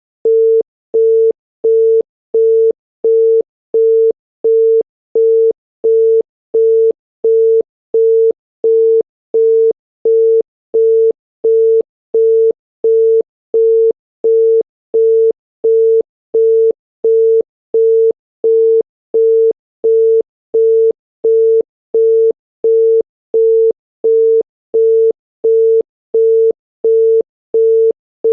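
Chinese telephone busy tone: a single steady 450 Hz tone beeping on and off in equal short beats, about one and a half beeps a second. It signals that the called line is busy.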